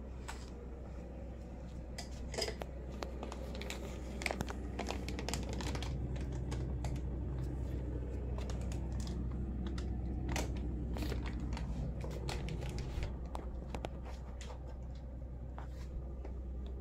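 Plastic bags and clutter crinkling and rustling as they are brushed past, with many small scattered clicks and crackles over a low steady hum.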